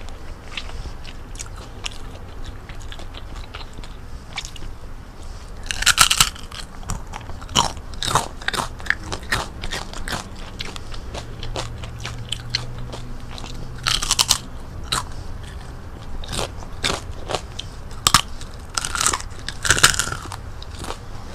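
Crunching bites into crispy fried chicken-skin chicharon, followed by chewing. Louder crunches come in clusters four times, with quieter crackling chews between them.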